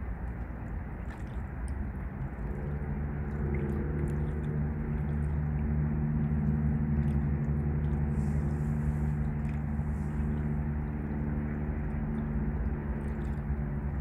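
An engine's steady low hum fades in about two and a half seconds in, grows louder, then holds, over a constant low rushing noise.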